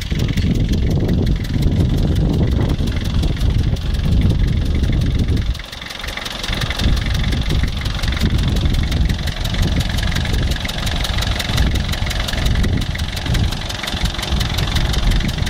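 Nissan 2.7-litre four-cylinder diesel in a London Fairway taxi idling with an even clatter, still warming up about a minute and a half after a cold start at minus 4. One injector has a slight blow-by, which the owner says has been there for over 100,000 miles without harming the running. The low rumble drops briefly about five and a half seconds in.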